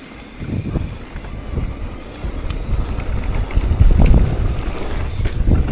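Wind buffeting the microphone over the rumble and rattle of a mountain bike rolling fast down a rough dirt trail. The rumble is loudest about four seconds in.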